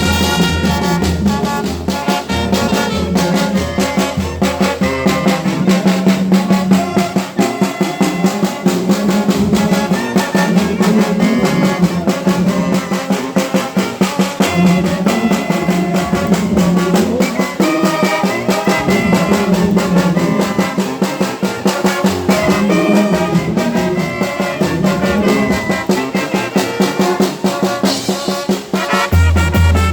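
Mexican brass band (banda de viento) playing: trumpets and trombones carry the tune over a steady beat of drums. The low bass drops back through most of the passage and comes in strongly near the end.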